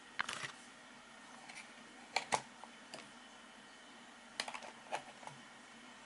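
Light plastic clicks and taps of test leads being handled at a digital multimeter's jacks, in a few short clusters over a faint steady hiss.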